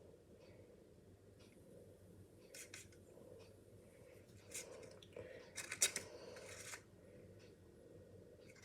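Spoon scraping and clinking against a bowl as cake batter is spooned into cupcake cases: a few short scrapes, with a denser cluster about six seconds in.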